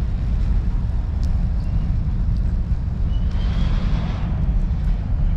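Wind buffeting the microphone of a rider on an electric scooter, a steady low rumble with a faint hiss above it. About three seconds in a brief, faint high-pitched squeal rises over it.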